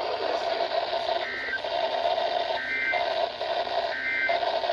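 Emergency Alert System end-of-message data bursts on NOAA Weather Radio: three short warbling digital tone bursts about a second and a half apart, over steady radio static. They mark the end of the warning message.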